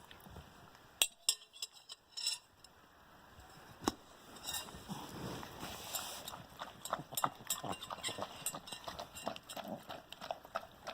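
A dog eating food: a few sharp clinks in the first four seconds, then a steady run of quick small crunches and clicks.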